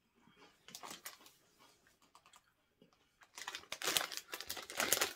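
Faint chewing of a chewy candy, then from about three seconds in, a dense run of crinkling and rustling of a plastic snack wrapper being handled.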